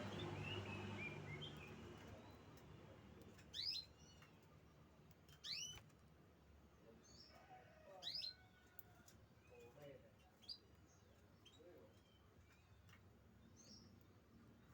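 Canary chirping: a few short, sharp rising chirps a couple of seconds apart, with fainter calls between them, over a low background murmur in the first couple of seconds.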